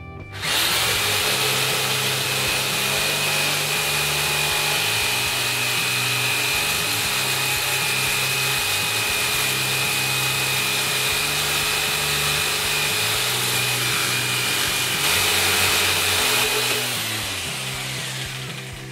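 Handheld electric jigsaw cutting through a wooden layout fascia board, running steadily with a high whine; it starts about half a second in and winds down near the end.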